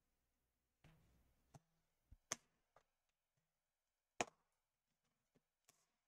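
A few sharp clicks and taps, the loudest about two and four seconds in, as a laptop's bottom cover is pried loose from its clips; otherwise near silence.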